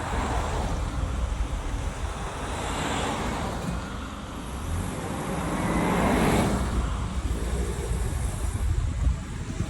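Road traffic: vehicles passing, swelling up about three seconds in and more strongly about six seconds in, over a steady low rumble.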